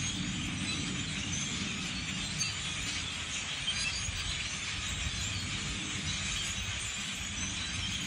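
A large flock of birds in the treetops calling all at once: a loud, unbroken din of squeaky, chattering notes, with a low rumble underneath.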